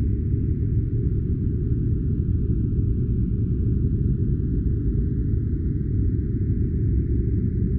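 Steady, deep rushing noise that never changes, a filtered white-noise track with nearly all its sound in the low range and only a faint hiss above.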